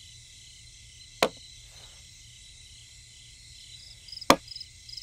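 Faint chirping of crickets, with regular chirps coming in during the second half, broken by two sharp clicks, the second about three seconds after the first.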